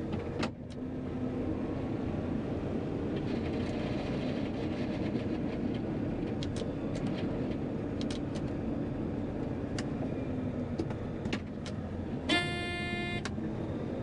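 John Deere 9500 combine running steadily, with scattered clicks and knocks. Near the end a loud electronic warning beep sounds for about a second.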